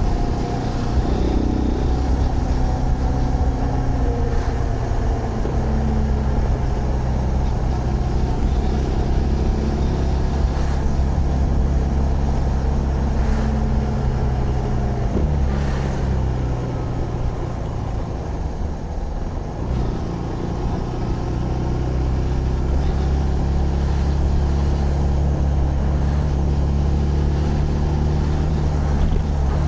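Zontes GK 125 single-cylinder motorcycle engine running on the move, its note shifting in pitch as the rider rides. The pitch drops sharply about halfway through, the sound eases briefly a few seconds later, then it pulls steadily again.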